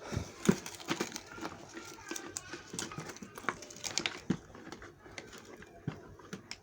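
Plastic toy packaging being opened: irregular crinkling and rustling with scattered clicks and taps of hard plastic pieces.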